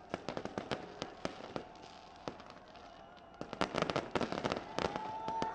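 Fireworks crackling: a rapid run of sharp pops and cracks that grows denser and louder a little past halfway.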